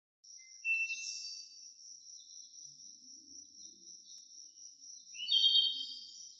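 Intro sound effect: a steady high-pitched drone with chirping, gliding calls that swell louder about a second in and again about five seconds in.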